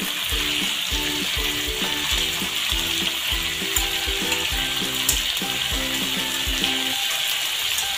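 Marinated chicken pieces sizzling steadily in hot oil in a kadhai as they are turned over with metal tongs to fry the second side.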